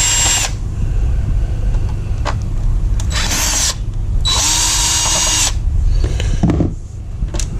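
A power drill being run in three short spurts, its motor whining up to speed each time, as the screws holding the Atari game console's case are backed out. A few small clicks come between the spurts, over a steady low rumble.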